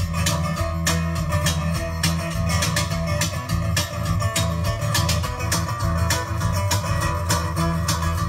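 Live band playing an instrumental tune: guitar strummed in a steady rhythm over sustained bass notes, with fiddle.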